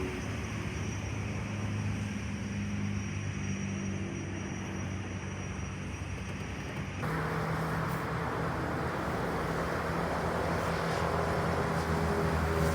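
Aircraft engines running with a steady drone. About seven seconds in the sound changes abruptly to a louder, hissier engine noise.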